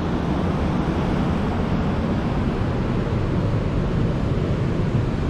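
Steady wash of ocean surf mixed with wind rumbling on the microphone.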